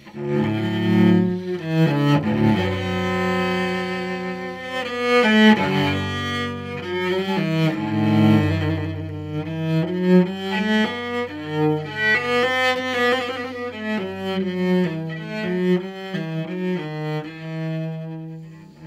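Solo cello played with the bow, unaccompanied: a slow passage of sustained notes that change pitch every second or two.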